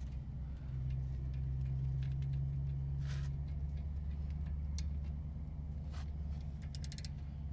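A steady low mechanical hum, with scattered light clicks and metal taps from hand tools and a quick cluster of clicks near the end, as a 13 mm socket works on the rear brake caliper bolts.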